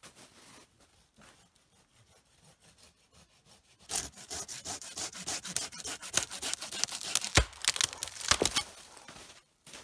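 Ferro rod (fire steel) scraped in quick, rasping strokes, starting about four seconds in and stopping shortly before the end, with a couple of sharper, louder strikes near the end.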